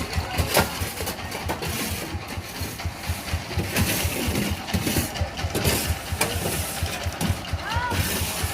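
Heavy construction machine's engine running with a steady, low, rapid throb, with a few knocks and a brief squeal near the end.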